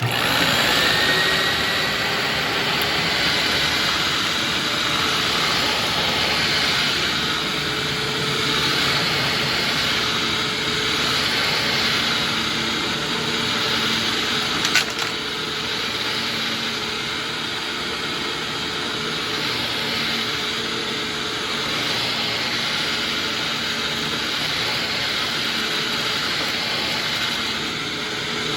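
Hoover WindTunnel Ultra upright vacuum cleaner switched on, its motor spinning up with a rising whine and then running steadily. A sharp click about halfway through.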